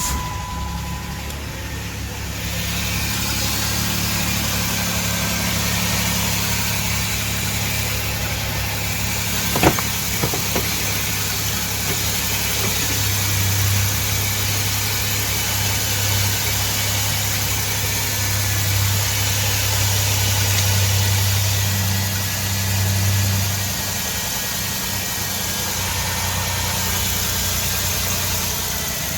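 A 2009 Chrysler minivan's V6 engine idling steadily just after starting, settling over the first couple of seconds. One sharp click sounds about ten seconds in.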